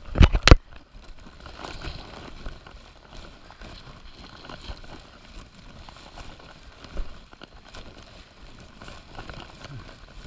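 Footsteps on a wet rocky trail with rustling and handling noise from a handheld camera; two sharp thumps right at the start are the loudest sounds.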